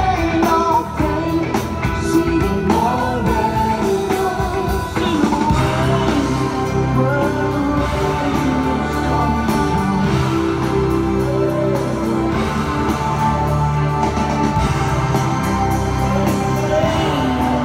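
Live rock band playing, with a lead voice singing over guitars, bass and drums, heard from the audience in a large open-air venue.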